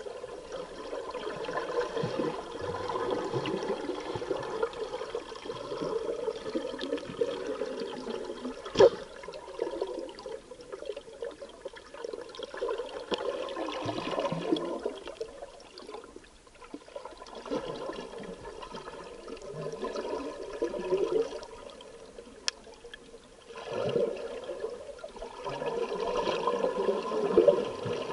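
Underwater scuba breathing: bubbles from the regulator's exhaust rush out in long bursts every few seconds, with short quieter breaths between. A single sharp click sounds about nine seconds in.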